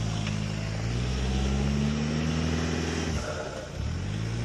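Nissan Patrol 4x4's engine running under light throttle while crawling off-road. Its note rises gently for about two and a half seconds, eases off about three seconds in, then picks up again.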